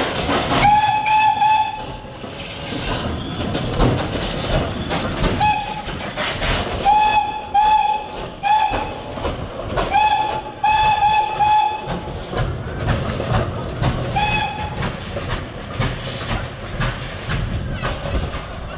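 A steam whistle on the Puffing Devil replica steam carriage blowing about ten short blasts on one steady pitch, some in quick runs of two or three, over rough street noise. The blasts stop a few seconds before the end.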